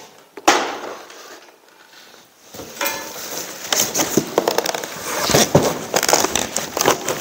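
A single thump about half a second in as a plastic air-hose reel is set down on a workbench. From about two and a half seconds in, a cardboard box is handled, rustling and crackling with many small clicks.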